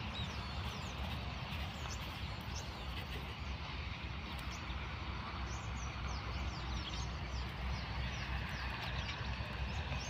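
Small birds chirping again and again in short, quick, falling notes over a steady low rumble of outdoor background noise.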